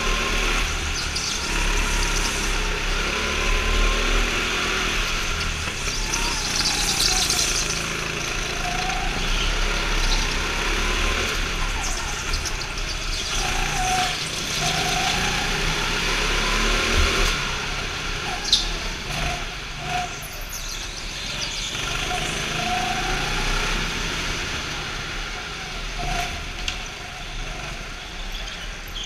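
Go-kart engines running hard on a lap, their pitch rising and falling again and again as the kart slows for corners and accelerates out, with other karts running close by.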